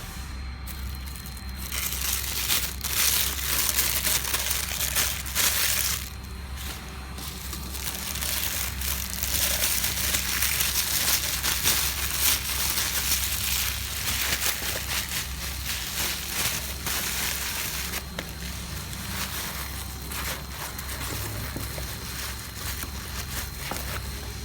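Packaging crinkling and rustling as it is handled and opened, in stretches that come and go, over a steady low hum.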